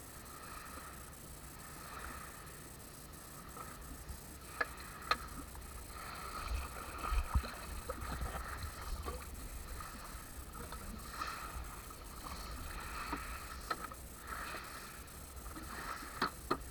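Small waves lapping against the hull of a jet ski beached at the water's edge, swelling and fading every second or two, with a few light knocks.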